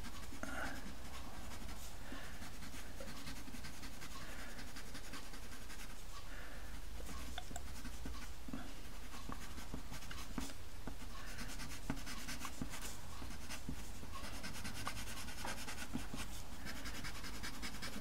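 White pastel pencil scratching lightly on pastel paper in short, irregular strokes, drawing highlight lines. A steady low hum runs underneath.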